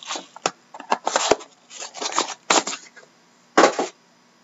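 A cardboard trading-card box and its foil-wrapped pack being handled: a run of rustles, crinkles and small clicks, with a louder rustle about three and a half seconds in.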